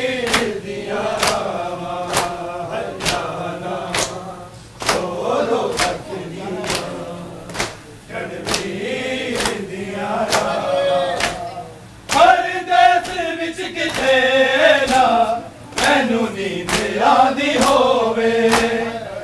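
Men chanting a Shia noha together, with a steady beat of open-hand chest strikes (matam) at nearly two a second.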